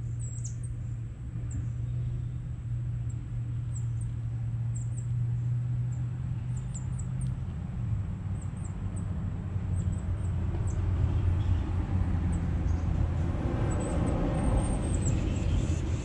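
Low, steady hum of a vehicle engine that grows louder over the second half, with short, very high bird chirps scattered throughout.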